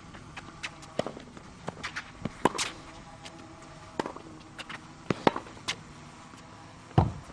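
Tennis rally on a hard court: a tennis ball struck by rackets in sharp pops about every second and a half, with lighter taps between them. The loudest, deepest hit comes near the end.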